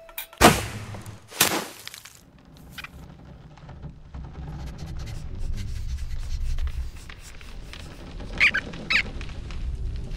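Cartoon sound effects: two sudden loud noisy swishes about a second apart near the start, then a low rumble that slowly builds. Two short squeaks from the cartoon rodents come near the end.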